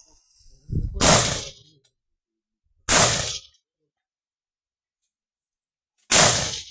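Three carbine shots fired singly, about two and three seconds apart, each with a short echoing tail.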